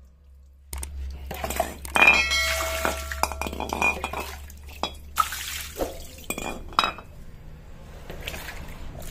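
Aluminium cylinder head from a Yamaha Mio J scooter being handled and set down on a tiled floor: a series of metallic clinks and knocks. The loudest comes about two seconds in and rings briefly, with a few more single knocks later.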